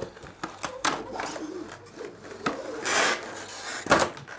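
A cardboard box being opened and a clear plastic packaging tray slid out of it: rustling, clicking and scraping of cardboard and plastic, with a longer scrape about three seconds in and a sharp knock near the end as the tray comes down on the table.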